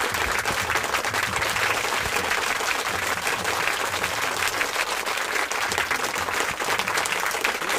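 Crowd applauding steadily: a dense, even patter of many hands clapping.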